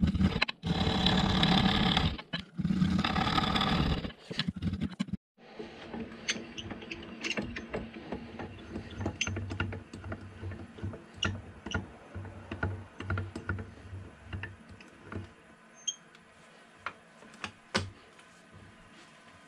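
A woodturning gouge cutting into a spinning apple-wood bowl blank on a Rikon lathe: a loud, rough shearing noise for about the first five seconds, broken by abrupt cuts. After that the lathe runs more quietly with a low hum and scattered light ticks and clicks.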